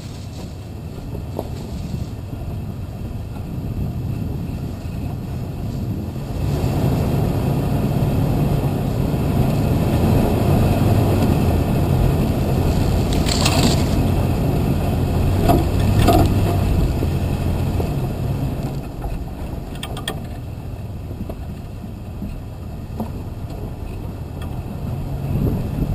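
A vehicle's engine running as it drives over a rough dirt track, getting louder about a quarter of the way in and easing off again past the middle. A few knocks and rattles from bumps come in the louder stretch.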